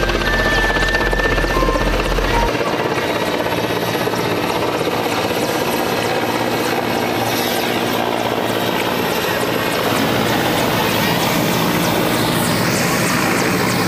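Mi-17 military transport helicopter coming in to land, its main rotor and turbine engines running steadily and loudly as it descends and hovers over the pad.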